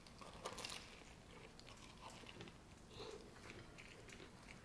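Faint biting and chewing of a breakfast taco, with a few small crackles about half a second in.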